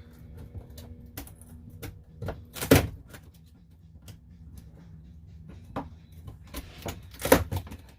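Scattered knocks and clatter of ceiling demolition in a trailer, with two louder sharp thuds, one about a third of the way in and one near the end, over a low steady hum.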